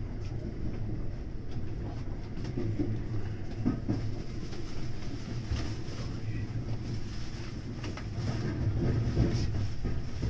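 JR West 521 series electric train running along a station platform, heard from inside its front cab: a steady low hum with scattered clicks.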